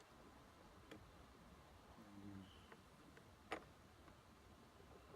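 Two faint sharp clicks from a hand tool, about two and a half seconds apart, over quiet room tone, with a brief low hum between them.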